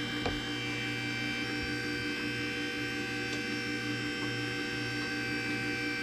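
Steady electrical mains hum made of several held tones, with a few faint clicks of steel tubing being handled.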